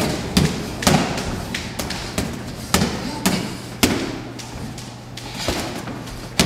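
Boxing gloves landing punches during close-range sparring: an irregular series of sharp thuds, several close together near the middle.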